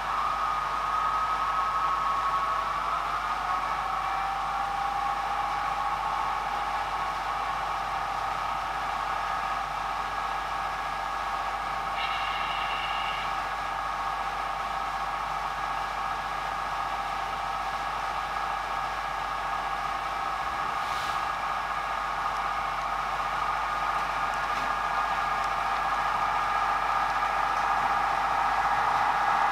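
Bachmann Class 158 model DMU's DCC sound decoder playing the diesel engine sound through its small speaker: a steady engine drone that shifts up in pitch a couple of seconds in and grows louder near the end. A brief high double tone sounds about midway.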